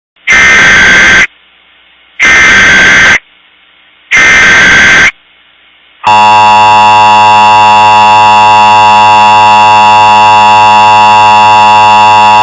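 Emergency Alert System signal: three buzzy one-second bursts of SAME header data about a second apart, then the steady two-tone attention signal starting about six seconds in. Together they announce that an emergency broadcast message follows.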